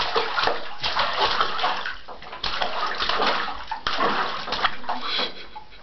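A baby splashing water in a bathtub, an irregular run of splashes and sloshing with a short pause about two seconds in.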